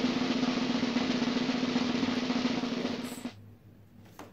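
Snare drum roll, a reveal sound effect, running fast and dense and then cutting off abruptly about three seconds in.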